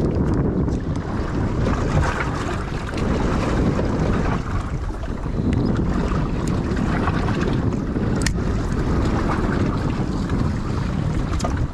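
Wind buffeting the microphone in a steady low rumble, with waves washing against a small boat on open sea. A couple of sharp ticks stand out, one about two-thirds of the way through and one near the end.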